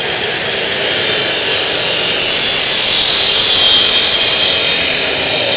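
Dekton DK355 2800 W abrasive cut-off saw, its 355 mm abrasive wheel grinding through a steel piece. The running motor is loud from the start; about half a second in the wheel bites and a steady, high-pitched grinding screech with a whine holds as the cut goes on.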